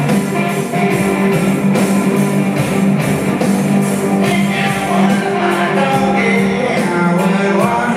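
Rock band playing live: guitar over a steady beat and bass line, with pitch glides in the second half.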